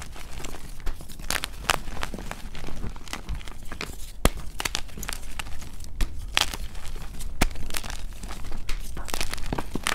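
Dyed gym chalk blocks snapped and crushed by hand: a steady run of crisp, dry crunches and sharp cracks at irregular intervals, sped up to double speed.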